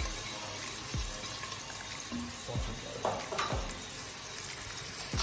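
Onions and spices sizzling in hot oil in a cooking pot, a steady hiss with a few dull knocks.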